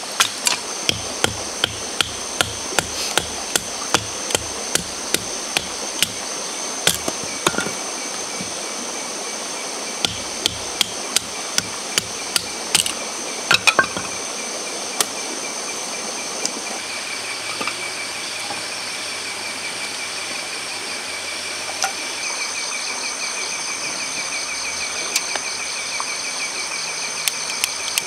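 A knife being batoned through a stick of firewood with a wooden club to split kindling: sharp wooden knocks about two a second for the first several seconds, then scattered knocks and clatter of wood. Insects chirp steadily in the background, more noticeable in the second half.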